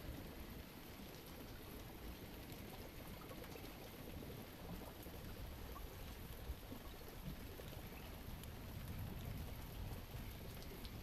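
Steady rain: an even hiss with scattered drops ticking, over a low rumble.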